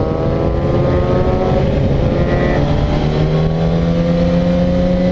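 Motorcycle engine running at road speed, its pitch climbing slowly as it accelerates, with wind noise over the microphone.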